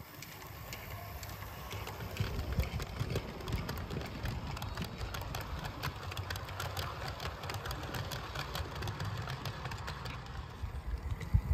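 Garden-railway model train running along the track, growing louder over the first couple of seconds. It gives a low engine-like rumble with rapid clicking from the wheels on the rails.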